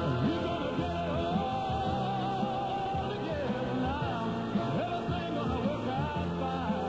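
A rock-and-roll style record playing on a radio broadcast taped on cassette, with a long held melody note about a second in.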